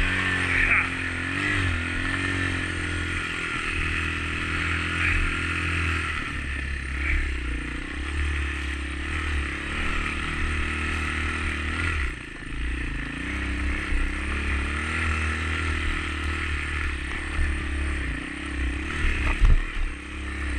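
Honda dirt bike engine running under way through snow, its revs rising and falling with the throttle, easing off briefly about twelve seconds in. A sharp thump near the end.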